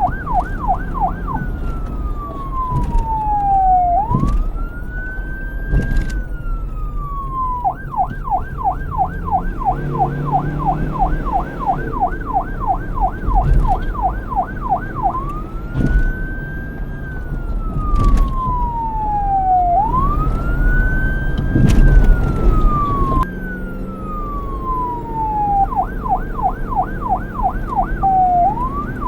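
Police car's electronic siren switching between a slow wail that rises and falls over a couple of seconds and a rapid yelp of about three pitch swings a second, with a low traffic rumble underneath.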